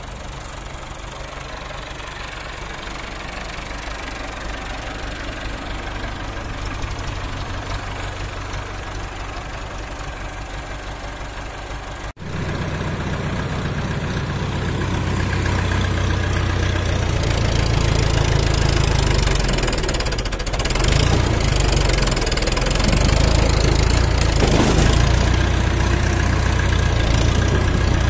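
Farm tractor's diesel engine running steadily. After a sudden break about twelve seconds in it is louder and closer, its level rising and falling as the tractor works.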